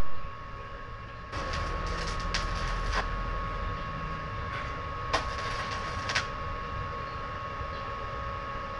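Electric arc welding a pillow block hinge onto the gate's GI pipe frame: crackling, hissing bursts from about a second and a half in, a pause, then more around five seconds, over a steady hum. A sharp knock sounds right at the start.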